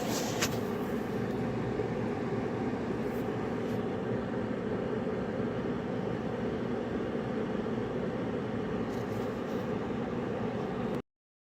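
Portable ceramic fan heater running, its fan blowing with a steady whoosh and a low hum. A brief click comes about half a second in.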